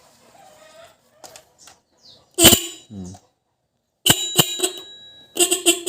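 Motorcycle electric horn on a Suzuki Smash, just rewired, being tested. One short honk about two and a half seconds in, a stuttering honk at about four seconds, then a quick run of short beeps near the end.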